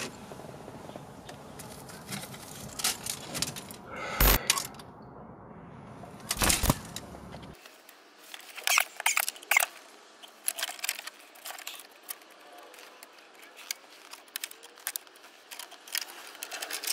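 Plastic clicks and rustling as hands handle car wiring-harness connectors and corrugated wire loom behind a dashboard. There are two sharper clicks about four and six and a half seconds in, then a run of small, irregular clicks.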